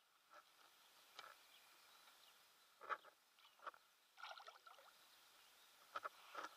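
Faint water splashing as a hooked wels catfish thrashes at the surface and a gloved hand reaches into the water for it. There are several short, sharp splashes: the loudest comes about three seconds in, a quick flurry follows a second later, and two more come near the end.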